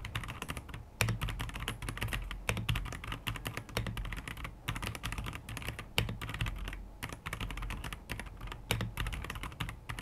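Fast typing on an Akko PC75B mechanical keyboard: a rapid, uneven stream of key clacks with a couple of brief pauses.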